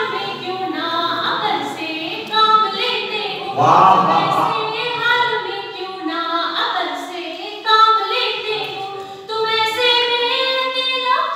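A woman singing a Hindi poem without accompaniment, holding long notes and gliding between them: verse recited to a tune.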